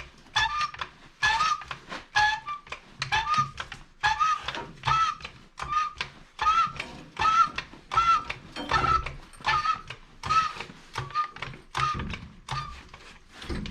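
Hydraulic floor jack being pumped by its handle: a rhythmic squeak and clack with every stroke, a little over one stroke a second, each squeak a short rise and fall in pitch.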